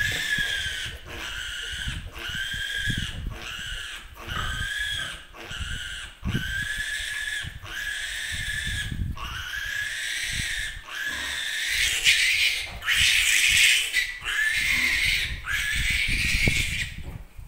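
A piglet squealing over and over while held down for an iron injection, one squeal about every second, louder near the end and stopping just before the close.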